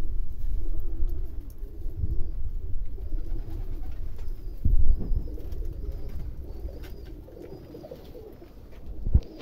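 Domestic pigeons cooing, a flock's low wavering calls overlapping steadily, over a low rumble. A few dull thumps come through, the loudest about five seconds in.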